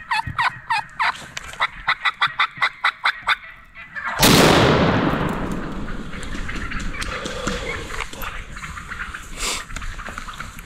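A fast run of wild turkey calls, about a dozen notes at three or four a second, then about four seconds in a single shotgun blast, the loudest thing here, which rings out and fades over a second or two: the shot at the lead turkey.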